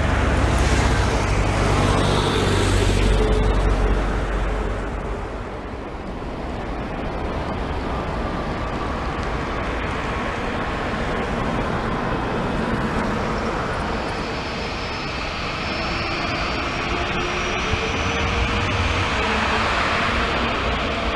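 Boeing 787 Dreamliner jet engines. First a loud low rumble from a 787-8 rolling out after touchdown, which fades after about four seconds. Then a 787-9's engines run with whines that rise in pitch toward the end, as they spool up for the takeoff roll.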